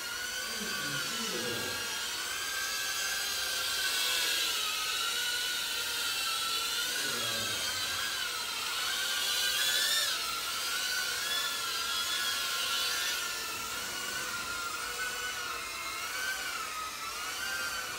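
FPV racing quadcopters' brushless motors and propellers giving a high whine, its pitch wavering up and down as the pilots work the throttle.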